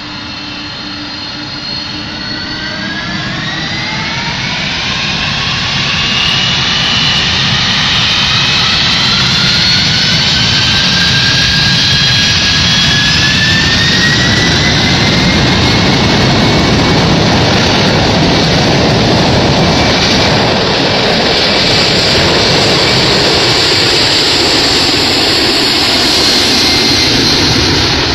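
Boeing 747 Dreamlifter's four turbofan engines spooling up to takeoff thrust: a whine that rises in pitch over the first dozen seconds while the level climbs, then a loud, steady roar as the jet rolls down the runway.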